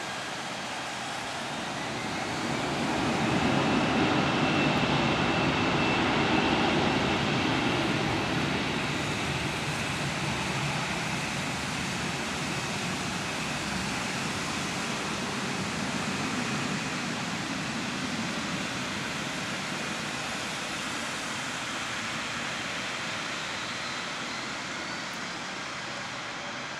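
Airbus A320's jet engines spooling up to takeoff thrust, a rising whine about two seconds in, then a loud steady jet roar that slowly fades as the plane accelerates away down a wet runway.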